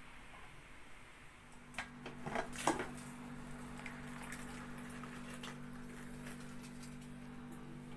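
Metal clanks and clicks of an aluminium pressure cooker lid being unlocked and lifted off the pot, loudest about two and a half seconds in, followed by a few lighter clicks. A steady low hum sets in just before the clanks and runs on under them.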